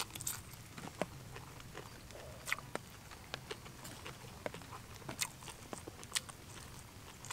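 A person chewing and eating with the mouth close to the microphone: irregular wet mouth clicks and lip smacks, a few every second, over a quiet background.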